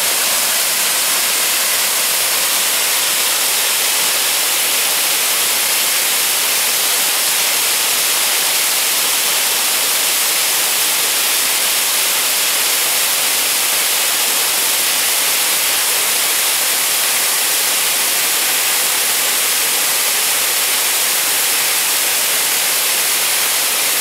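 A 15-metre mountain waterfall pouring steadily down layered shale into a rocky pool, heard up close as a loud, even rush of falling water.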